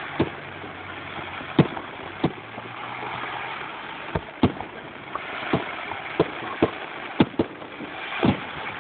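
Fireworks shells bursting in the sky: about a dozen sharp bangs at irregular intervals, some in quick pairs, over a steady rushing background noise.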